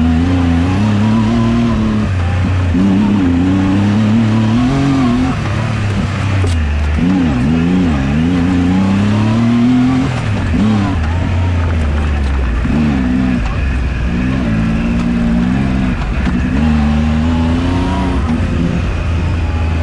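Turbocharged Yamaha YXZ1000R side-by-side's three-cylinder engine, heard from the cockpit, revving up and down over and over as the throttle is worked on and off.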